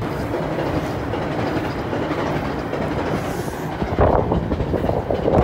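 A train passing over the nearby steel railway bridge: a steady rumble and clatter of wheels on rails. Voices come in about four seconds in.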